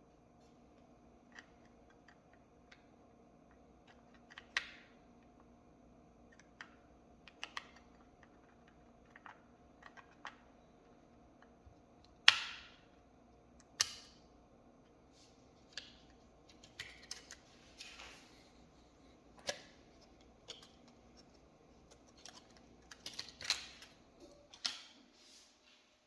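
Irregular small clicks and taps, as of a laptop's panel, screws and parts being handled during work on it, the sharpest a little under halfway through and a cluster near the end, over a faint steady hum.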